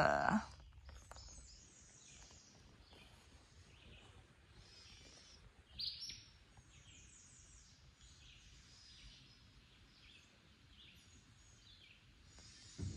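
Faint birdsong in a forest: several birds repeating short high-pitched calls, with one louder chirp about six seconds in. A soft bump near the end.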